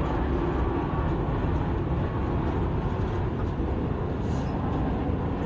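ANA Boeing 787 airliner on final approach with its landing gear down, its jet engines making a steady low rumble.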